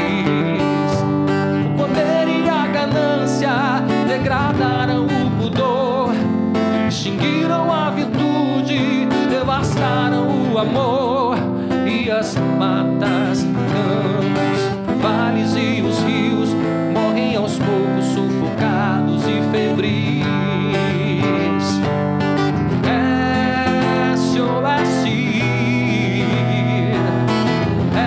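A man singing a song to his own acoustic guitar accompaniment, the voice coming and going between guitar passages.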